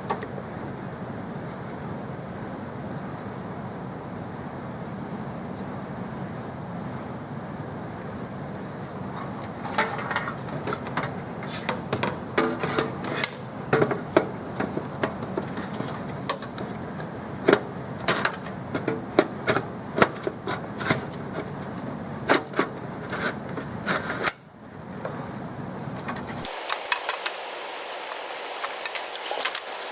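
Steady background hum. From about ten seconds in there are many irregular sharp clicks and knocks of computer hardware being handled and fitted. Near the end the low hum drops out while the clicks go on.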